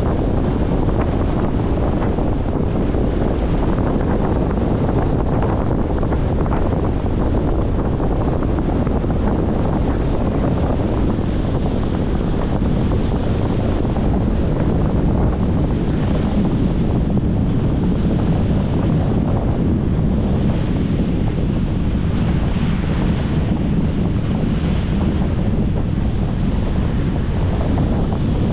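Strong wind buffeting the microphone in a steady rumble, over choppy wind-driven waves washing against a concrete shoreline.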